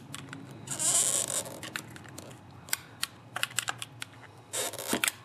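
Flat screwdriver prying a rubber fuel line off a small motorcycle carburetor, metal against metal: a scraping rub about a second in, a string of small sharp clicks and taps, then another short scrape near the end.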